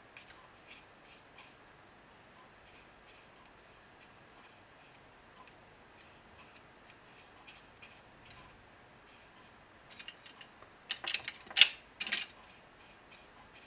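Large cat's-tongue watercolour brush stroking across watercolour paper: faint scratchy swishes about three times a second, with a run of louder, sharper strokes near the end.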